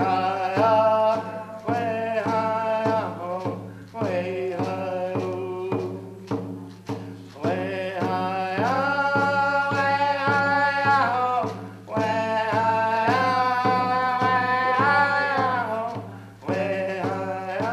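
A song with a voice singing long held notes over a steady drum beat of about two strokes a second.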